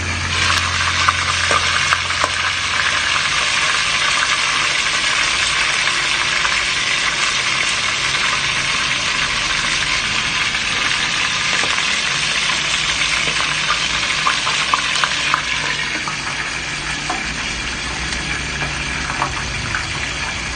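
Whole chicken sizzling and crackling in a covered pot. The sizzle is louder while the glass lid is lifted and eases off a few seconds before the end, once the lid is set back.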